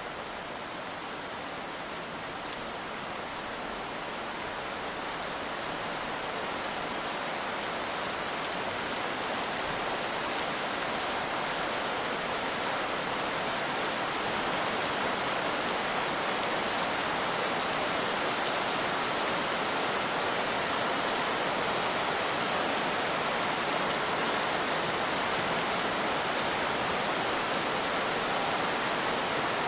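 Heavy rain falling in a dense, steady hiss, swelling gradually louder over the first fifteen seconds or so and then holding level.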